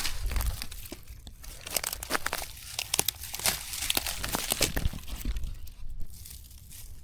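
Dry dead twigs and dry grass crackling and snapping as they are gathered and broken by hand for fire tinder; the crackle is dense and thins out near the end.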